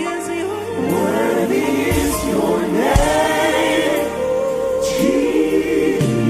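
A gospel choir singing a slow worship song, backed by a band with a steady bass that comes in about two seconds in and a few drum or cymbal strikes.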